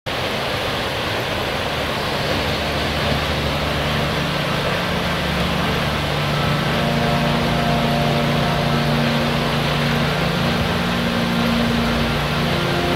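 A steady, even rushing noise, with sustained low held tones fading in after a couple of seconds and shifting near the end.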